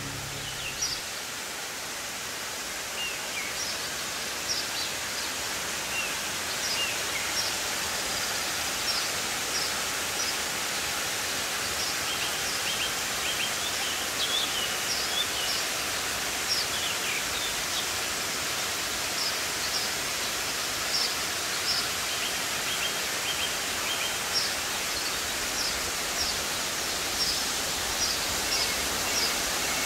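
Steady rush of water from the Ssang Falls, twin waterfalls in Mureung Valley, with birds chirping in short high calls over it throughout.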